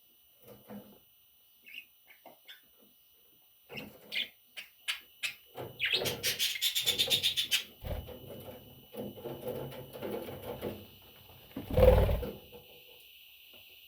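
Baby budgerigars (budgie chicks) calling: scattered small clicks and rustles, then a burst of rapid, raspy chirping about six seconds in that carries on more softly for a few seconds. A single loud thump comes near the end.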